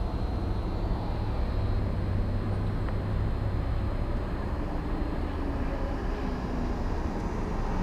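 Steady low rumble of a car in motion heard from inside the cabin: engine and road noise.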